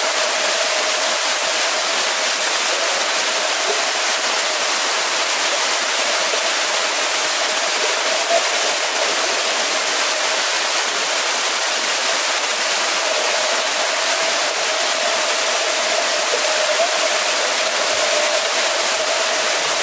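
Steady wash of water noise from swimmers splashing in a pool, with a faint steady mid-pitched hum underneath.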